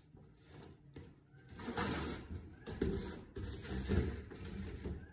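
Green painter's tape being pulled off the roll in strips to hold glued foam down on a boat seat base, in several rough ripping pulls.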